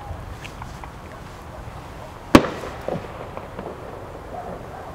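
A firework going off with one sharp, loud bang about two seconds in that dies away. A few fainter pops and crackles follow.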